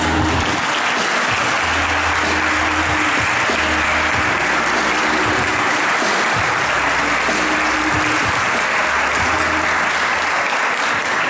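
A seated audience of a few dozen people applauding steadily, a continuous wash of many hands clapping.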